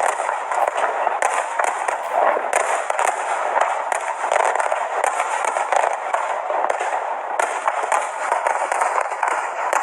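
Fireworks crackling and popping, a dense, continuous stream of many small bursts.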